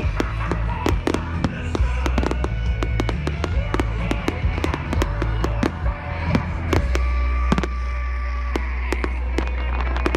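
Fireworks display: rapid bangs and crackles of exploding fireworks over music with a heavy bass line, which settles into one long held bass note about seven seconds in.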